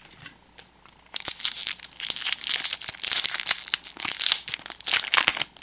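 A 1991 Topps Stadium Club baseball card pack being opened by hand, its wrapper crinkling and tearing from about a second in.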